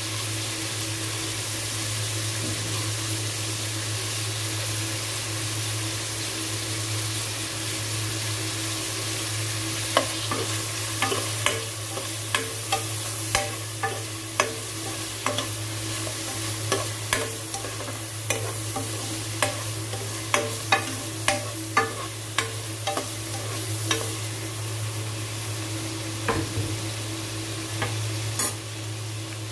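Garlic and ginger frying in melted margarine in a pan, with a steady sizzling hiss and a low steady hum underneath. From about ten seconds in, a utensil clicks and scrapes against the pan many times as the pan is stirred, then the clicks thin out near the end.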